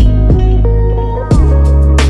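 Background music: guitar over a deep, steady bass, with a sharp beat at the start and another about a second and a half in.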